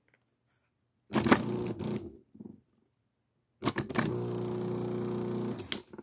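Amana washing machine drain pump switched on twice: each time it starts with a clatter and then hums steadily as the impeller spins, the first run about a second long from about a second in, the second about two seconds long, stopping just before the end. The pump, which had been stuck, now apparently turns freely.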